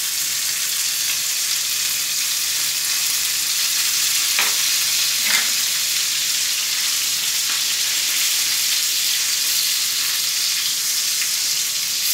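Rolled chicken pieces frying in oil and melting butter in a small pan: a steady sizzle, with two light knocks about four and five seconds in.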